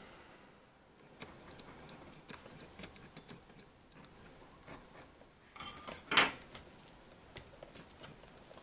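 Cardboard lens box being handled and opened: small taps and rustles of card, with one brief, louder scrape of cardboard about six seconds in.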